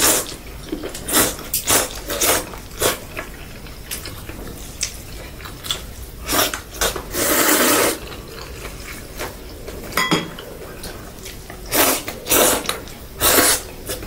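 A man slurping egg noodles off chopsticks: a string of short, wet slurps, with one longer slurp of about a second a little past the middle.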